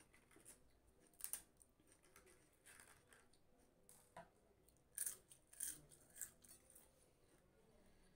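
Crisp fried pappad crunching and crackling, a few short sharp crackles about a second in and a tighter cluster around five to six seconds.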